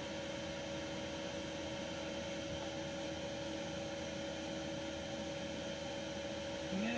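Steady background hiss with a constant low electrical hum: room tone with no other activity.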